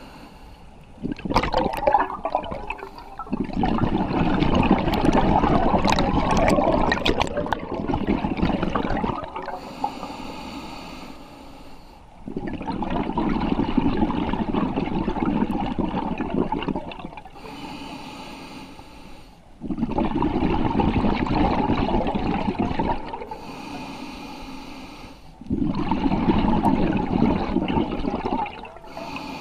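Scuba diver breathing through a regulator underwater. Each exhale is a long rush of bubbles lasting several seconds, and there are about four of them, roughly every seven seconds. Quieter hissing inhalations come between them.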